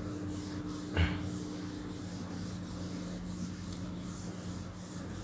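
Felt chalkboard duster rubbing across a chalkboard to erase it, a steady scrubbing in repeated strokes, with a single knock about a second in.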